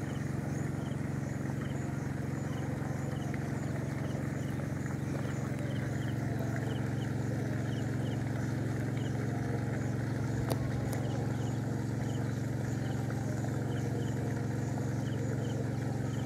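Steady, unchanging drone of an engine running at constant speed, with faint short high chirps repeating at a regular pace above it.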